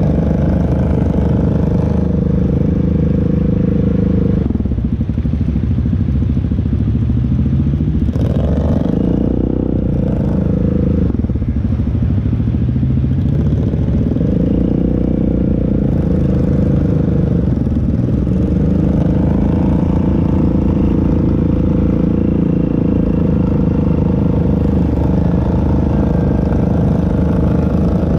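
ATV engine running under load, its revs dropping and climbing several times.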